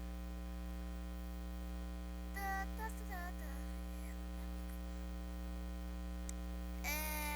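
Steady electrical mains hum with a ladder of buzzing overtones, picked up on a PC microphone input that has earphones plugged in as the microphone.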